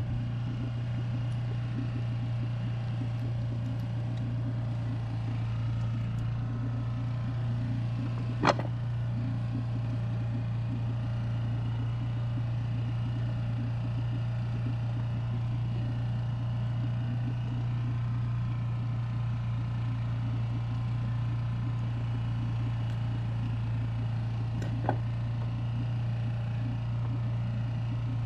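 Small Honda four-stroke outboard motor running steadily at slow trolling speed, an even drone with no change in pitch. Two short sharp knocks stand out, about eight seconds in and again near the end.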